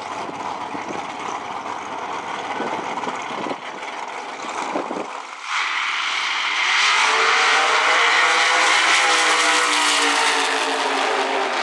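Two drag-racing V8 engines rumble and rev at the starting line, then launch together about five and a half seconds in. They run at full throttle down the track, much louder, their pitch climbing as the cars accelerate.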